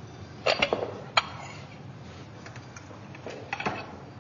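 Ceramic bowls knocking and clinking as they are handled and set down on a countertop: a quick cluster of knocks about half a second in, one sharp clink about a second in, and a few more knocks near the end.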